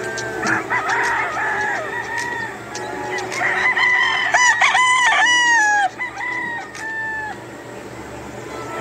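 Gamefowl roosters crowing, several crows overlapping, loudest around the middle and dying away after about seven seconds.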